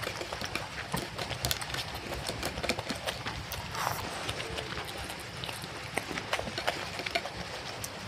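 Close-miked eating by hand: irregular sharp clicks of chewing and mouth noises, with fingers mixing rice and curry on a plate.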